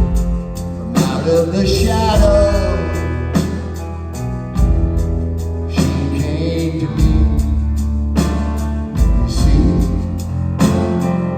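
Live rock band playing a song, with a sung lead vocal over electric guitar, bass and a steady drum beat.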